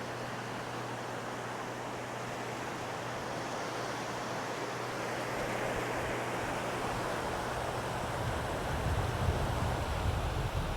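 Sea waves washing onto a sandy beach, a steady surf hiss, with wind buffeting the microphone as low rumbling during the second half.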